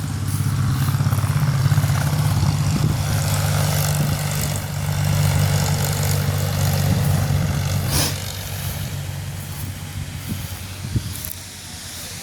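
An engine running steadily at a constant speed, dropping away about eight seconds in.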